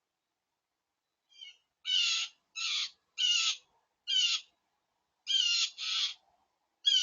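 A bird giving a series of loud, harsh calls: a faint one, then about seven strong ones, some in quick pairs.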